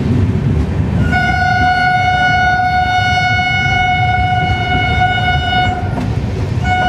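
Train horn sounding one long steady blast of about five seconds, then a short second blast, over the low rumble of the passenger train's coaches rolling slowly.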